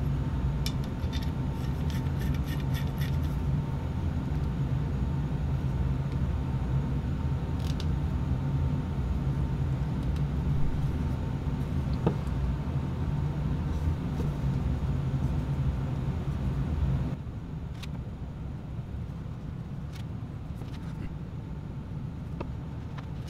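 A steady low machine hum that drops abruptly in level about 17 seconds in, with a few faint light clicks and taps as an arrow tipped with a fixed-blade broadhead is handled and spun on its point on a wooden bench.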